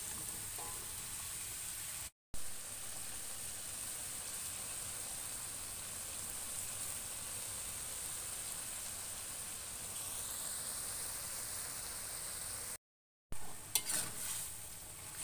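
Stir-fry sizzling steadily in a metal wok, with two brief gaps where the sound cuts out. Near the end a slotted metal spatula clatters and scrapes against the wok as the food is stirred.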